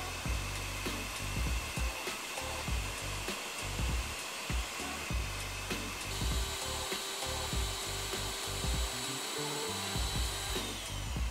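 Electric meat grinder's motor running steadily with a high whine as it grinds dried apricots and raisins. The pitch of the whine changes about halfway through.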